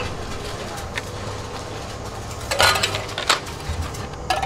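Heavy metal truck-clutch parts clinking and knocking as they are handled and set down on a steel flywheel. There are a few separate sharp clinks, the loudest about two and a half seconds in.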